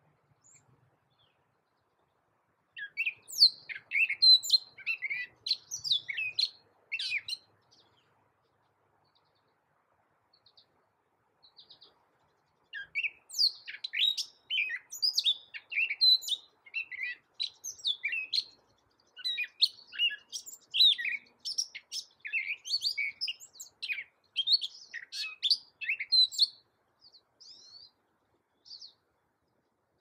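Gray catbird singing: quick runs of varied short notes, no two alike. A first bout starts about three seconds in. After a pause with a few stray notes, a longer bout starts around thirteen seconds, and scattered notes trail off near the end.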